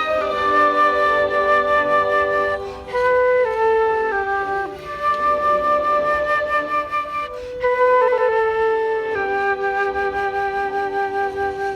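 Instrumental music: a flute-like wind instrument playing a slow melody of long held notes that step from one pitch to the next.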